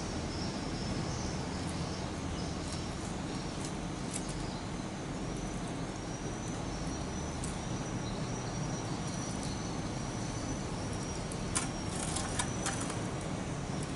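Outdoor background with a steady low hum and a thin, steady high insect chirr that comes in about a third of the way through. Near the end come a few sharp clicks and rustles as grilled fish on sticks are lifted off the embers into a plastic tub.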